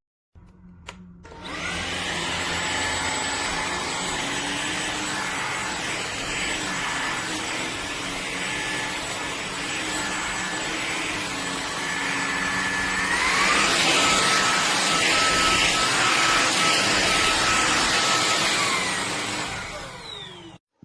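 Hoover HF1 Plus cordless stick vacuum cleaner switched on with a click, its motor whining up to speed over a steady rush of air. About two-thirds through it steps up to a higher, louder pitch, then winds down and stops near the end.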